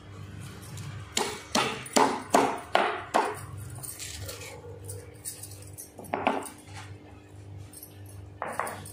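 Stone pestle pounding garlic cloves in a small stone mortar: about six knocks at a steady beat, a bit more than two a second, followed by a couple of single knocks.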